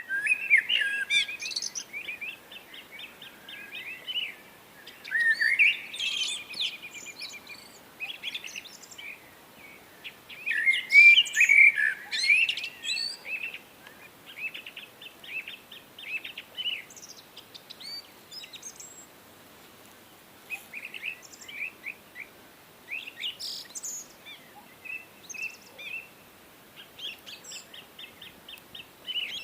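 Songbirds singing: repeated phrases of rapid high chirps and trills, loudest just at the start and in bursts about five and eleven seconds in, over a faint steady hiss.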